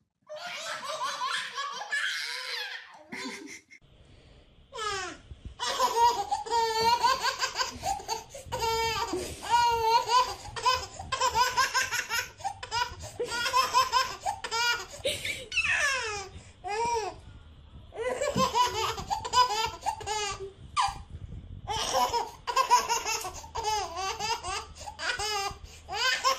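A baby laughing in repeated high-pitched peals, with short pauses between bursts.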